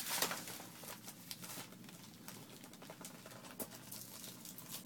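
Paper and plastic packaging of a present rustling and crinkling as hands work to open it, with a louder rustle right at the start and scattered small clicks.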